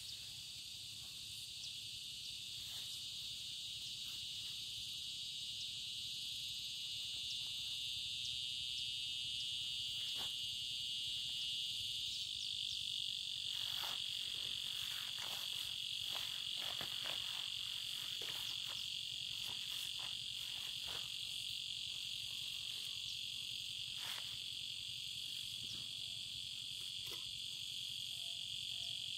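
Steady, high-pitched chorus of insects droning without a break, with scattered faint clicks and rustles from about halfway in.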